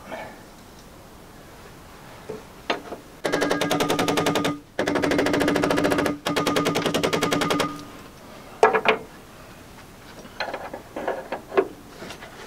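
Power impact wrench hammering in three short rapid bursts, winding up the tension on a ball joint puller against a seized Land Rover steering arm, followed by a few sharp separate knocks.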